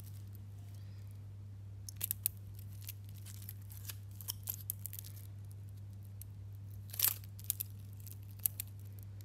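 Red protective plastic film being peeled off the watch's caseback: a series of short crackles and ticks, the loudest about seven seconds in, over a steady low hum.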